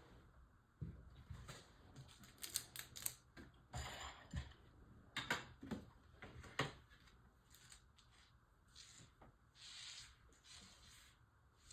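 Faint, irregular clicks, taps and short scrapes of small model-kit parts being handled and fitted together, busiest in the first half, with a few brief rustling scrapes later.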